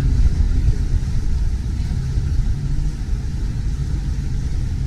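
Steady low rumble of motorboat engines on the canal.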